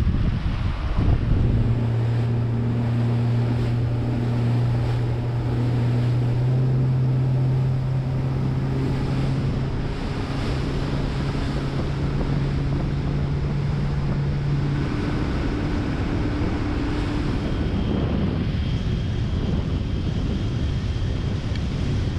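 Motorboat running under way: a steady engine hum under wind buffeting the microphone and water rushing past the hull. The engine's note changes about fifteen seconds in.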